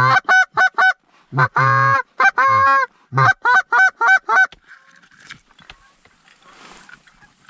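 Canada goose call blown hard by a hunter: a run of quick clucks, two longer honks that break from a low note to a high one, then a fast string of about six clucks that stops about four and a half seconds in.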